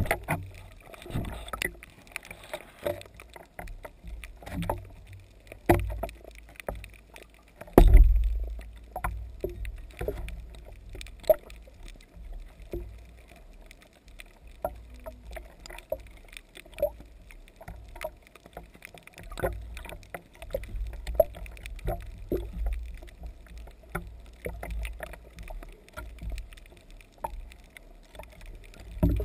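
Water sloshing and splashing around a camera on a speargun as it moves in and out of the surface, heard muffled through the waterproof housing, with scattered clicks and knocks and a heavier thump about eight seconds in.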